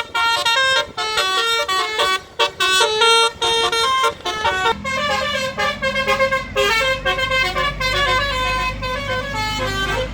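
Bus 'basuri' melody horn playing a tune in clear, stepped notes. About halfway in, a steady low engine rumble starts underneath it.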